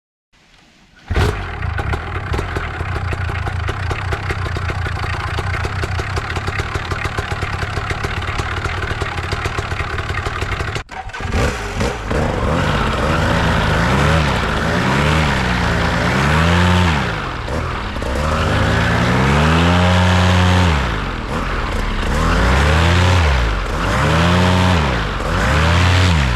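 Polini Thor paramotor engine, a single-cylinder two-stroke, running at a steady idle for about ten seconds, then revved up and down several times.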